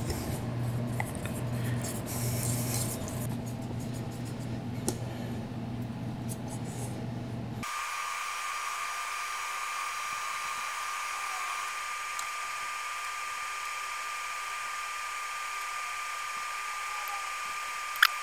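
Light clicks over a low hum for several seconds. Then, after an abrupt cut, a vacuum pump runs with a steady whine, drawing the air out of freshly mixed silicone. A single sharp click comes near the end.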